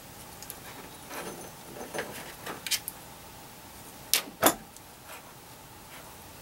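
Hands working the stripped end of an RG59 coaxial cable with a small hand tool: light rustling and small clicks over the first three seconds, then two sharp clicks close together about four seconds in, the loudest sounds.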